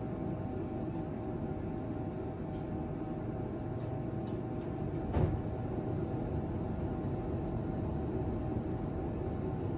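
Model railroad tank cars rolling slowly along the track with a steady low rumble and hum. There are a few light clicks, and one louder thump a little past halfway, as wheels cross rail joints.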